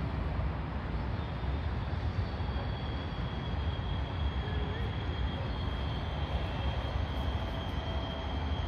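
Steady low rumble of city background noise, with a faint steady high whine.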